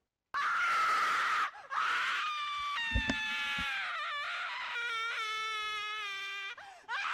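A sudden, loud, shrill scream bursts in after a moment of silence: a jump-scare screamer. It wavers and falls in pitch, breaks off briefly twice, and starts up again near the end.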